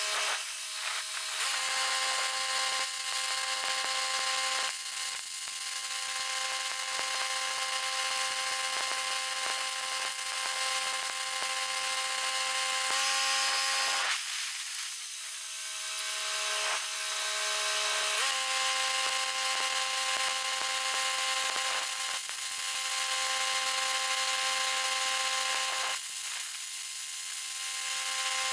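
An electric power tool motor runs with a steady whine over a hiss. The whine sags in pitch and briefly lets up about halfway through, then runs on and eases again near the end.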